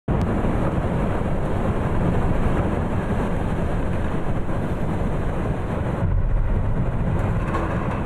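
Steady, loud rumbling roar of rushing air and falling snow inside the air-supported Metrodome as its Teflon-coated fiberglass roof fails and snow pours through onto the field. The upper hiss thins slightly about six seconds in.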